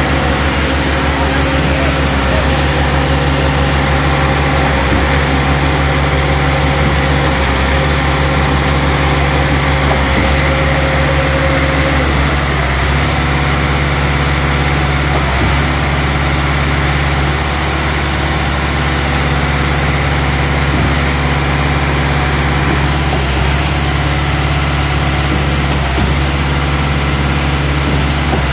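Heavy diesel machinery running steadily while a self-loading concrete mixer unloads concrete into a concrete pump, with a faint regular pulse about every two and a half seconds. A higher whine in the sound drops out about halfway through.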